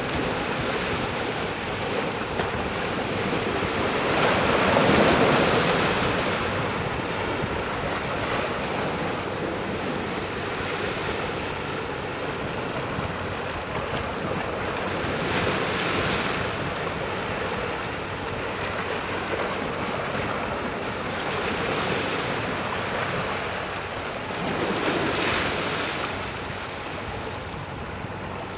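Wind buffeting the microphone over the wash of harbour water, a steady rushing noise that swells in gusts several times, loudest about five seconds in.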